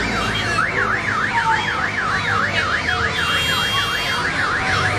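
Electronic siren in fast yelp mode, its pitch sweeping up and down about three times a second, over a steady low hum.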